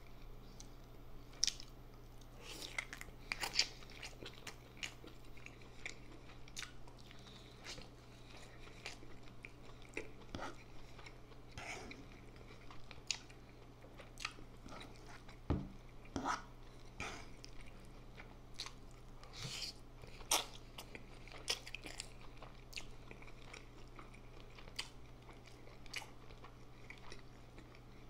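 Close-miked chewing and biting of instant noodles, chicken drumstick and sausage: irregular mouth clicks and smacks, over a steady low hum.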